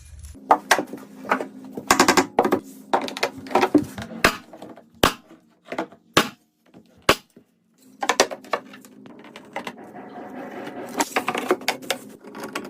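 Irregular sharp clicks and knocks of hard objects, some in quick clusters, over a low steady hum, with a pause midway and denser clicking near the end.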